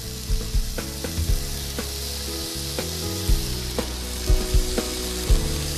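Beef steaks sizzling steadily in a very hot grill pan over high heat, with fresh rosemary in the pan. Background music with a steady beat runs underneath.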